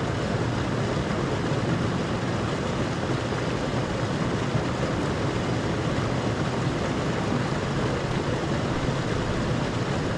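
Steady rushing of a mountain stream flowing over stones.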